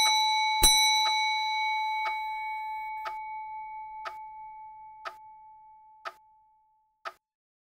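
Clock ticking once a second while a bell rings out: it is struck once more about half a second in and fades away over about six seconds. The bell marks another 15 seconds of the count-up timer.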